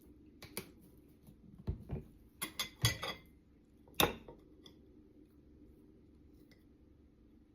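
Dishes and cutlery being handled: a run of sharp clicks and clinks over the first four seconds, the loudest knock about four seconds in, then only a low steady hum.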